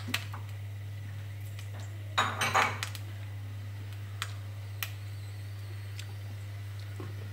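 Kitchenware clattering: a short burst of clinking dishes and utensils a little over two seconds in, with a few single clicks before and after, over a steady low hum.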